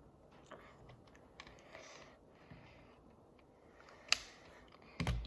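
Small plastic toy parts being handled and snapped together: faint scattered clicks and rustling, a sharp click about four seconds in, and a louder knock near the end.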